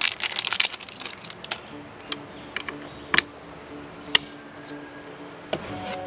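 Clicks and rattles of RV entry door lock parts being handled and fitted by hand: a quick run of small clicks in the first second and a half, then single sharp clicks about once a second.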